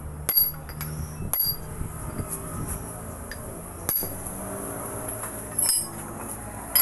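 Steel hammer striking a drift set in the kingpin eye of a truck's I-beam front axle: about six sharp, ringing metallic clinks at irregular intervals, as the kingpin is worked.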